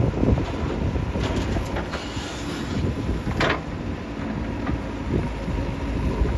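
JCB 3DX backhoe loader's diesel engine running heavily as it works, with a short metallic clank about three and a half seconds in.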